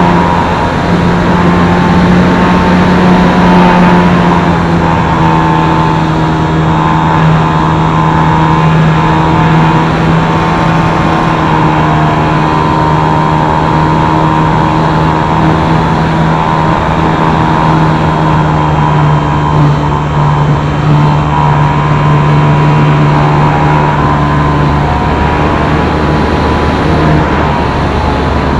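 Multiplex FunCub RC plane's electric motor and propeller running at steady cruise throttle, picked up close by the camera on the wing with wind rushing past. The pitch drops slightly about four seconds in, and the steady tone breaks up near the end as the plane comes down low over the fields.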